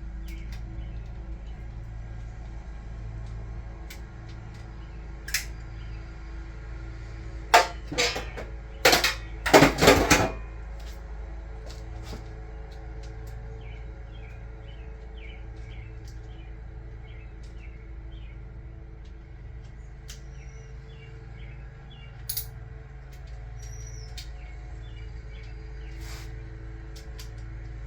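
Hand tools working the cam-cap bolts on a 2JZ cylinder head: a cluster of loud sharp knocks in the middle and a run of light repeated clicks after them, over a steady hum.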